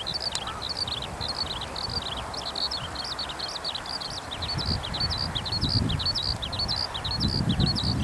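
Eurasian skylark singing: an unbroken, rapid stream of high chirps, warbles and trills. A low rumble comes and goes underneath in the second half.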